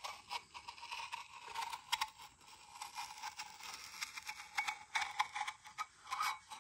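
Metal screwdriver tip scraping and tapping along the edge of a VR6 flywheel and its ring gear: a run of irregular small scratches and clicks.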